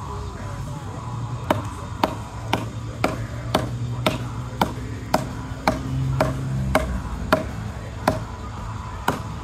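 Hatchet chopping into a thin log, about two sharp blows a second starting a second or so in, over background music.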